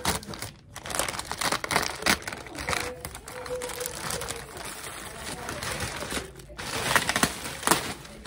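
Plastic courier pouch crinkling and rustling in the hands as it is opened, with irregular sharp crackles.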